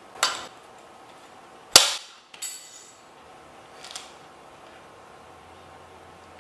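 A few sharp snaps and knocks from a thread pulled hard across a tablet on a hard tabletop. The loudest crack comes about two seconds in, with smaller clicks before and after it.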